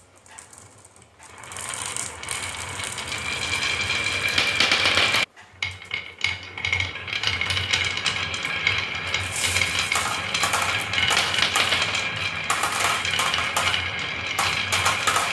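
Marbles rolling and clattering down a marble run, a continuous rattle of many small clicks that starts about a second in, builds, breaks off sharply about five seconds in and goes on again.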